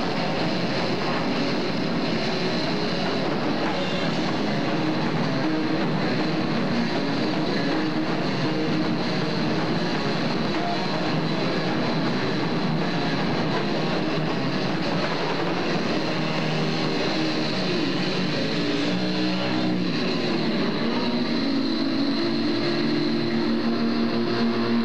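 Live rock band playing loudly, a dense, unbroken wall of amplified sound with guitar, captured on a camcorder microphone. Near the end, held sustained notes stand out.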